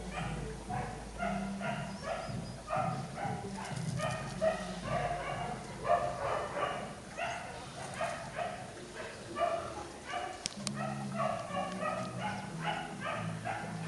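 Dogs barking and yipping in a continuous run of short barks, about two or three a second.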